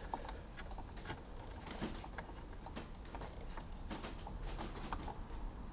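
Faint, scattered small clicks and taps of fingers working a gauge needle onto its spindle in a car's instrument cluster, over a low steady hum.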